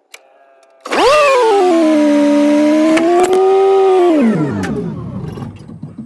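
New Holland L160 skid loader being started: a loud whine rises sharply about a second in, holds for about three seconds, then winds down, leaving a lower engine rumble. The machine starts now that its new seat belt registers as buckled.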